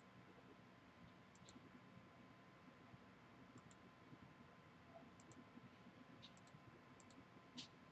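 Faint clicks of a computer mouse button, several in quick pairs, against near-silent room tone; the last one, near the end, is a little louder.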